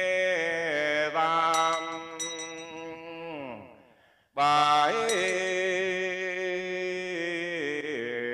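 A monk's voice chants a Vietnamese Buddhist requiem sutra in long, drawn-out notes that slide between pitches. The chant fades out about halfway, breaks briefly, then resumes strongly. A small bell is struck a few times, twice in the first half and once just after the chant resumes.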